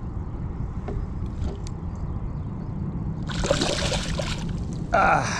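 A hooked schoolie striped bass splashing at the water's surface beside the boat's hull, one burst of about a second a little over three seconds in, over a steady low rumble.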